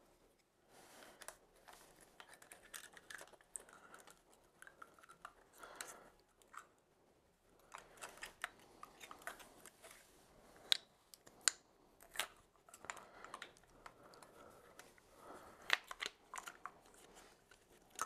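Faint handling noise of brake pads being fitted into a motorcycle's rear brake caliper: light metallic clicks, taps and scrapes, with a few sharper clicks.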